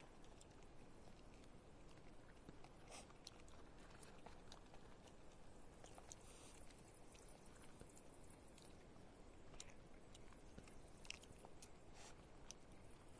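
Faint eating sounds: soft, scattered clicks of someone chewing and biting food over a quiet background hiss.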